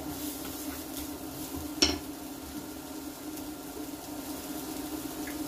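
Chopped red onions sizzling softly in olive oil and butter in a frying pan, with a wooden spoon stirring and one sharp knock against the pan about two seconds in. A steady low hum runs underneath.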